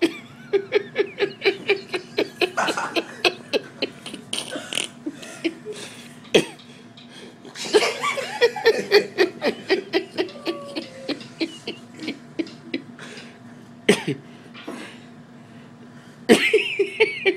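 People laughing hard in long fits of rapid, breathy ha-ha pulses that break off and start again several times. Three sharp knocks cut through.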